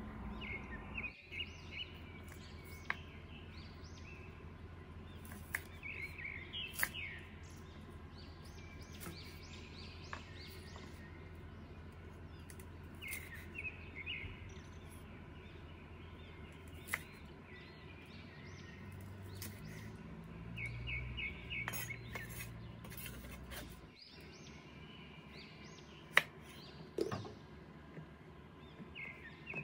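Birds chirping in short runs of quick notes over a steady low hum. Now and then a chef's knife knocks sharply on a wooden cutting board, loudest near the end.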